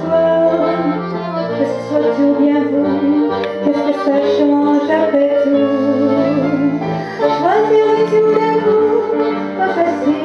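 A woman singing live with vibrato over sustained instrumental accompaniment, with a quick upward vocal swoop about seven seconds in.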